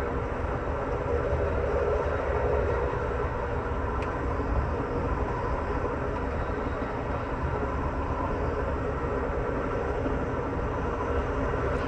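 Steady running noise heard inside an Amtrak Superliner sleeping car travelling at about 75 miles an hour: the low rumble of wheels on rail and the car in motion.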